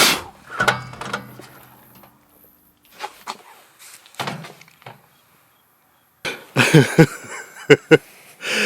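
A sharp thump at the start, then a man coughing and gasping in short bursts near the end, choking on smoke from a burning plush toy.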